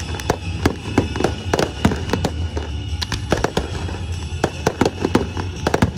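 Fireworks display: a rapid, irregular series of aerial shells bursting with bangs and crackles, over music playing.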